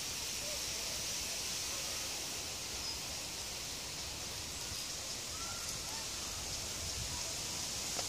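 Outdoor ambience: a steady, even high hiss with a few faint, brief chirps.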